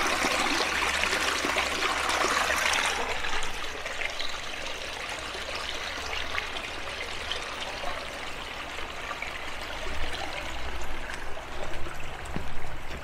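Running water of a park stream, a steady rush that is loud at first and drops to a softer, more distant rush after about three seconds.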